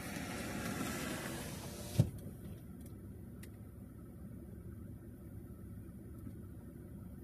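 Outside noise heard from inside a stopped car, then a single sharp thump about two seconds in, after which the outside sound is cut off and only a low, steady rumble remains.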